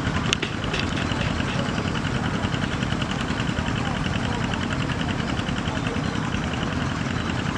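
Small boat engine idling steadily: a low rumble with an even ticking about ten times a second.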